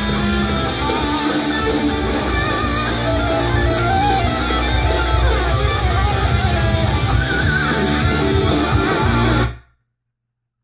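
Guitar-driven music with heavy bass played through a Soundcore Boom Bluetooth speaker, at about 80% volume. It cuts off abruptly into dead silence about a second before the end.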